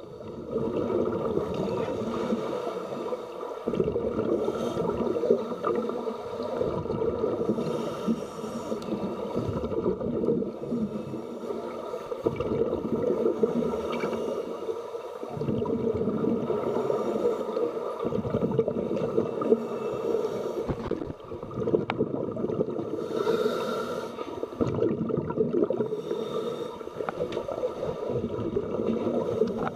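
Scuba divers breathing through their regulators, heard underwater. Exhaled bubbles gurgle in swells lasting a few seconds, over a steady hum.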